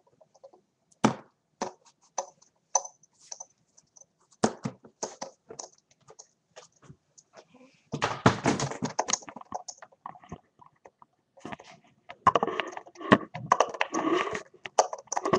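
A cardboard box being opened by hand: scattered knocks and taps on the cardboard, then stretches of tearing and rustling about eight seconds in and again near the end.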